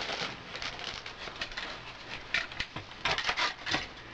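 Handling noise: scattered light knocks, clicks and rubbing as a small wooden box and other props are moved about, with a busier run of louder clicks in the last second and a half.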